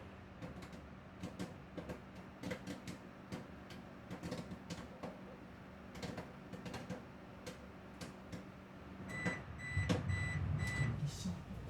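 Microwave oven humming, with scattered light clicks and knocks, then about five short electronic beeps in quick succession near the end.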